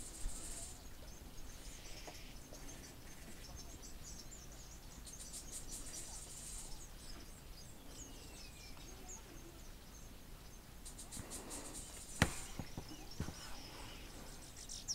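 Insects trilling and birds chirping in several bursts, with one falling whistled call about eight seconds in. A single sharp knock stands out near the end.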